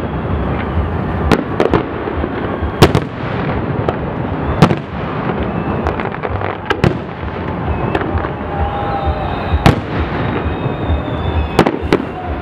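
Aerial fireworks display: about ten sharp shell bangs, spread unevenly through the stretch, over a continuous crackling rumble of bursts.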